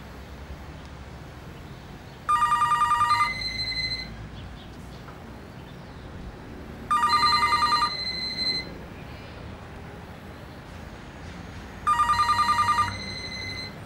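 Telephone ringing three times, about five seconds apart. Each ring is a rapid trill lasting about a second, with a tone that lingers briefly after it, over a low steady background rumble.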